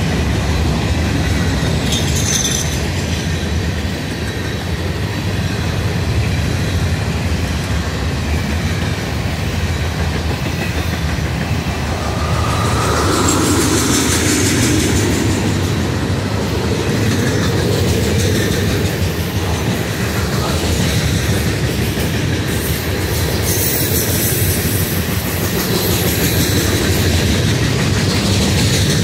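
Freight cars of a CSX mixed freight train rolling past close by at a steady speed, steel wheels clattering over the rail joints in a continuous clickety-clack.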